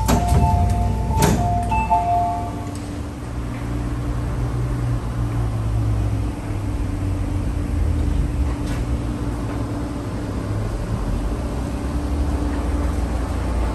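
MTR East Rail MLR electric train's two-tone door chime beeping for about the first three seconds, with two sharp door knocks. It is followed by the standing train's steady low rumble and electrical hum.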